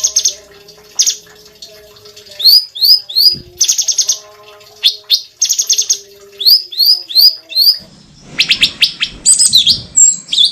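A cucak cungkok singing continuously in loud, repeated phrases: runs of quick sweeping chirps broken by short, rapid buzzy trills. Near the end the song turns into a harsher, rattling chatter.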